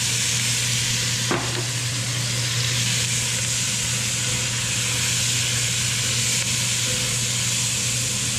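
Diced zucchini and yellow squash sizzling in hot olive oil in an enameled cast-iron Dutch oven while being stirred with a utensil: a steady frying hiss over a low hum, with a single click about a second in.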